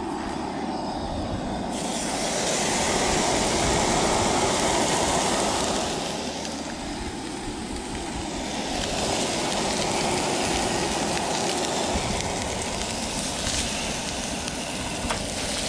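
Steak sizzling in a pan on a camp stove: a steady hiss over a rougher rush, growing brighter about two seconds in.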